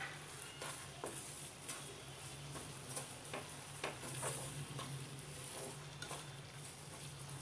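Wooden spatula stirring and scraping grated beetroot halwa around a frying pan, about two scrapes a second, over a soft sizzle as the milk cooks off.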